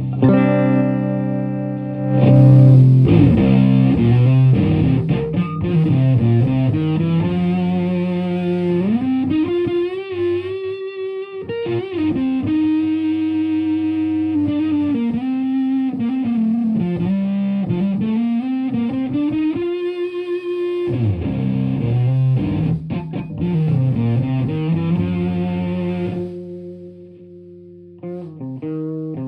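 Electric guitar played through effects: a melodic line of held notes with bends sliding up and down in pitch. It drops back about 26 seconds in to quieter sustained notes.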